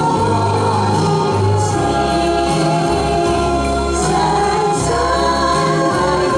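An amateur group of singers singing a slow song together in chorus over accompaniment with long held bass notes.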